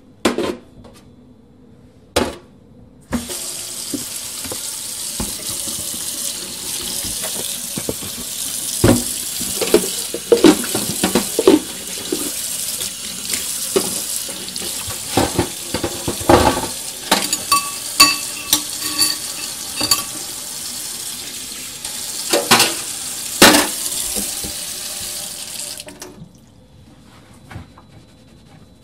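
A tap turned on about three seconds in, running steadily into a sink, and shut off near the end. Repeated knocks and clinks of things being handled in the sink come through the running water, with a couple of knocks before the tap opens.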